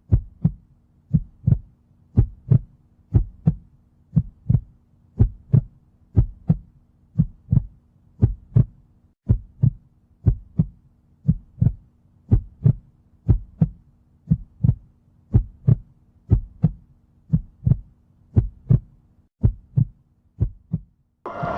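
Heartbeat sound effect: steady double thumps, lub-dub, about 90 beats a minute, over a faint low hum. It cuts off near the end into a burst of noise.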